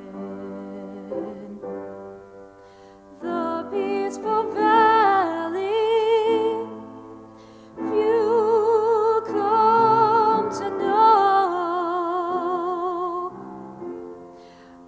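A solo singer with a wide vibrato sings two long phrases over sustained piano chords. The piano plays alone at the start and briefly near the end.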